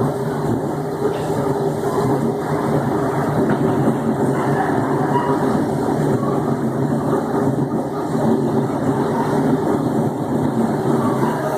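Electric multiple unit TUE 1726 running along the line with a steady growling drone and rail noise.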